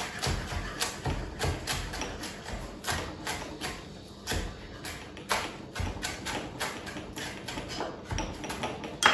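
Kitchen knife chopping fresh parsley on a wooden cutting board: a quick, uneven run of knocks, about three a second.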